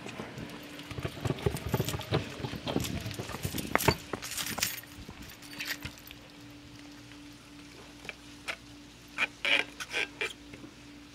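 Kick scooter wheels rolling and clattering over a mini golf course's surfaces for the first few seconds, then quieter, with a cluster of sharp clacks about eight to ten seconds in.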